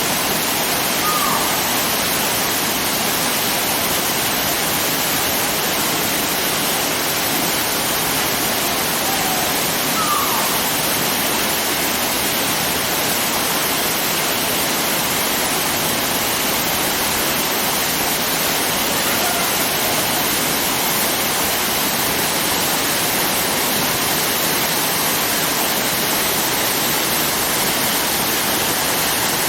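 Waterfall on the Tonalmil River: a steady, unbroken rush of falling water.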